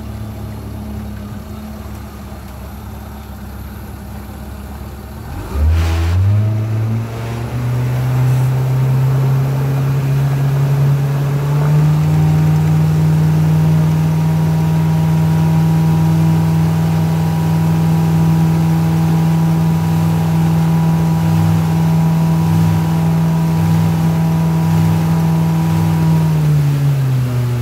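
Suzuki DF70 four-stroke outboard motor running slowly, then opened up with a brief knock about six seconds in, its pitch climbing over several seconds to a steady full-speed run under load, then falling away near the end as the throttle is eased back.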